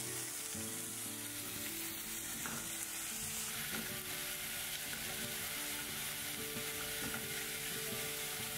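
Ground beef sizzling steadily as it fries in a pan with olive oil, chopped onion and garlic.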